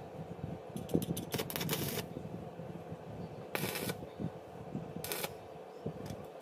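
Stick (arc) welder making short tack welds on a steel strip, heard as three bursts of hiss. The first, about a second in, is broken and sputtering and lasts about a second. Shorter, steadier ones follow at about three and a half and five seconds.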